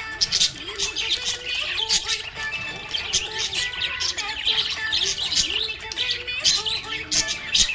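Several small pet parrots chirping and warbling continuously: dense, overlapping rapid high chirps.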